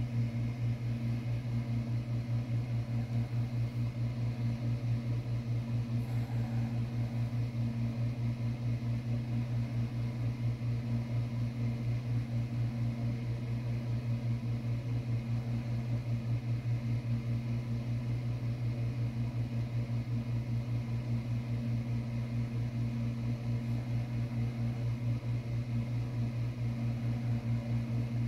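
Steady low mechanical hum with an even, rapid throb, like a motor or appliance running.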